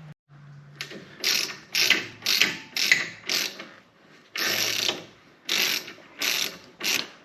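Hand ratchet with a 17 mm socket backing out brake caliper bolts, the pawl clicking in a short burst on each return swing, about ten strokes in a row.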